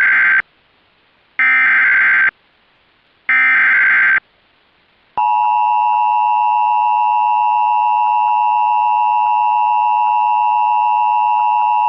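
Emergency Alert System broadcast: three bursts of SAME header data, each a buzzy digital screech about a second long, followed from about five seconds in by the EAS attention signal, a steady two-tone electronic tone that announces a flash flood warning.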